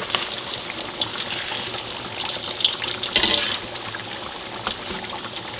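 Egg omelette (Padang-style telur barendo) frying in a wok of deep hot oil with a steady sizzle, louder for a moment about three seconds in as it is turned. A few sharp clicks and scrapes come from the wooden spatula and metal skimmer against the wok.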